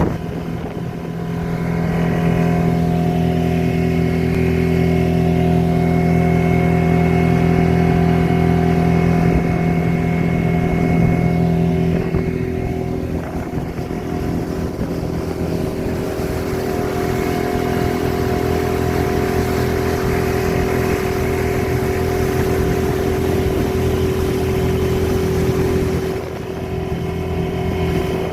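An engine running steadily, its note shifting in pitch about twelve seconds in and again near the end.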